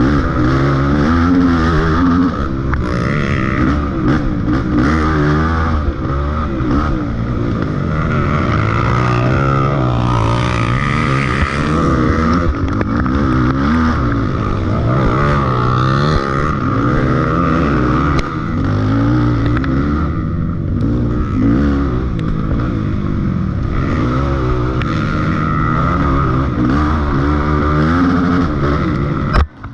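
Off-road dirt bike engine running under load, its pitch rising and falling continually as the throttle is worked along a rough trail. The sound briefly drops out near the end.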